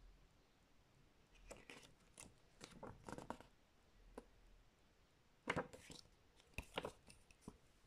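Quiet rustling and scraping of a CD booklet's glossy pages being turned and handled, with a few sharper clicks in the second half.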